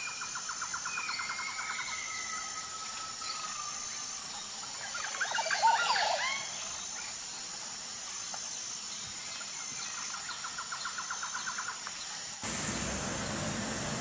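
Birds chirping and calling: a fast, pulsed trill of chirps near the start and again towards the end, with thin gliding whistles, and a busier burst of rising and falling calls about five to six seconds in.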